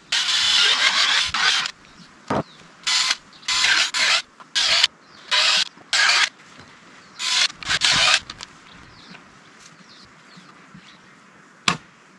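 Cordless drill boring into a wooden beam in short bursts: one about a second and a half long, then about eight shorter ones over the next few seconds. A single sharp knock near the end.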